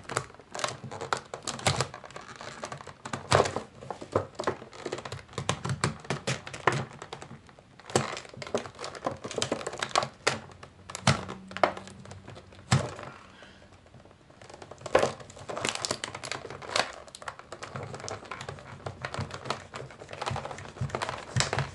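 Thin plastic blister pack crinkling and crackling as a knife blade cuts along its edge, with many irregular sharp clicks and a short lull a little past the middle.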